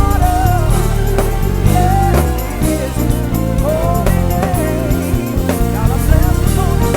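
Gospel band playing with drum kit, bass, keys and guitar, a wavering lead melody line weaving over the groove.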